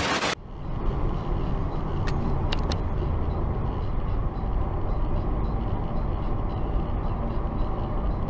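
A short burst of static-like hiss, then steady road and engine noise of a car at highway speed, heard from inside the cabin through a dashcam, with a few faint clicks about two to three seconds in.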